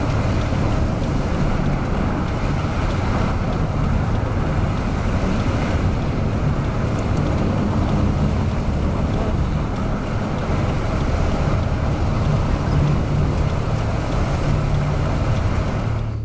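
Steady road and engine noise of a moving car, at an even level with no breaks.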